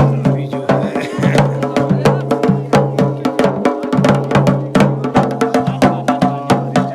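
Music with a fast, steady percussion beat of sharp drum strikes over held pitched tones.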